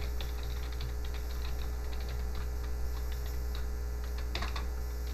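Computer keyboard being typed on, irregular key clicks as code is entered, over a steady low hum.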